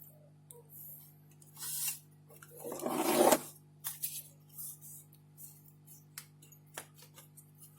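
Small clicks, taps and rubbing of tools and laptop parts being handled on a repair bench, with one louder, longer rubbing noise about three seconds in. A steady low electrical hum runs underneath.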